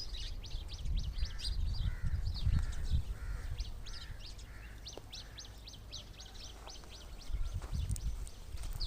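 Small birds chirping at a feeder: a fast run of short, high chirps several times a second, with lower rasping calls about twice a second. A low rumble sits underneath, strongest in the first few seconds and again near the end.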